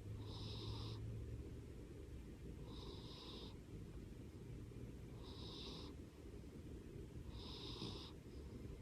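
A sleeping cat snoring: four short, high-pitched snores, about one every two and a half seconds.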